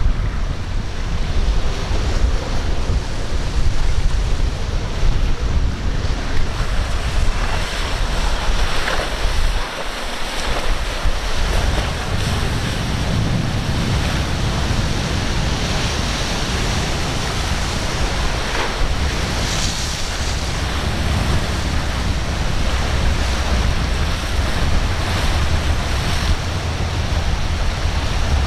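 Ocean waves breaking and surf rushing at an inlet, with strong wind buffeting the microphone as a steady low rumble. There are a few brief louder splashes along the way.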